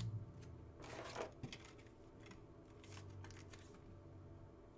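Faint rustling and soft clicks of trading cards being handled and slid against one another, a few brief strokes about a second in and again around three seconds in.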